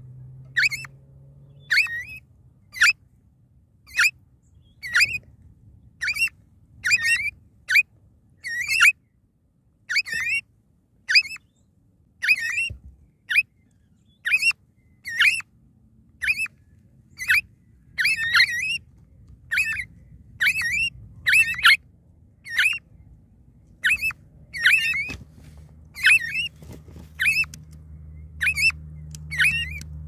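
Eastern rosellas calling from the nest: short, high, squeaky chirps repeated steadily, about one or two a second.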